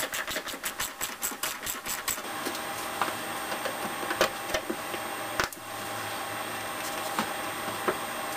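Hand ratchet clicking fast, about five clicks a second, for the first two seconds. After that come a few scattered light knocks and handling noise as engine hoses are worked back into place.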